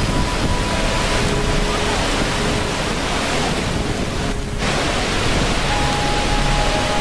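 Steady, loud rushing-water noise, a dense even hiss, with faint long held tones sounding over it. The upper hiss briefly thins about four and a half seconds in.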